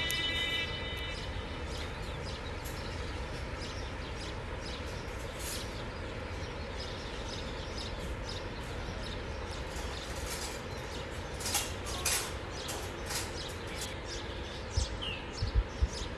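Steady seaside outdoor noise with a low rumble of wind on the microphone, as background music fades out in the first moment. A few short sharp knocks come about two-thirds of the way in and again near the end.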